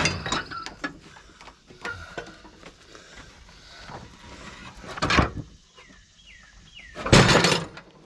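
Steel riding-mower deck being handled and flipped over: scattered metal clanks and rattles, with a loud crash about five seconds in and a louder, longer crashing scrape near the end.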